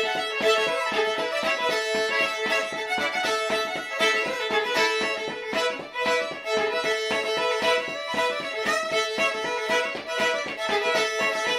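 Solo fiddle playing a lively traditional dance tune, with steady drone notes sounding under the melody. Her feet tap out a percussive rhythm on the wooden floorboards in Quebecois style.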